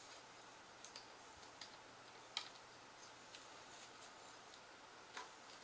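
Near silence with a few faint, sparse clicks, the loudest about two and a half seconds in. They come from a plastic spudger prying tiny cable connectors off a MacBook Pro logic board.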